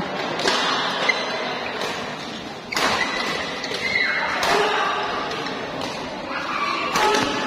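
Badminton rally: four sharp racket strikes on the shuttlecock, spaced a second and a half to two and a half seconds apart, each echoing in the hall.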